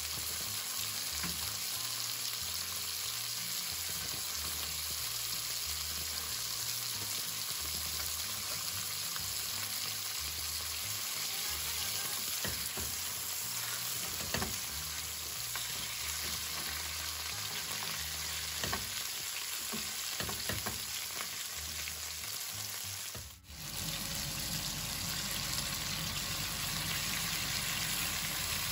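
Veal shanks sizzling in hot olive oil in a frying pan, a steady frying hiss. In the middle come a few sharp taps and scrapes of spatulas as the meat is turned, and late on the sound cuts out for a moment.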